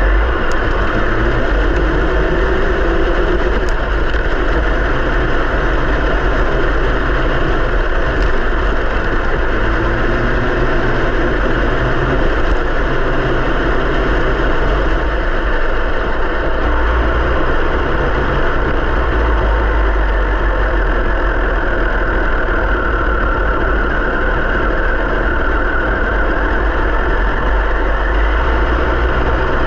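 Traxxas TRX-4 Sport RC crawler driving, heard from a camera mounted on its body: the steady whir of its electric motor and geared drivetrain over a loud low rumble of tyres and chassis rattle. The noise starts abruptly, and the motor's pitch drifts slowly up and down with speed.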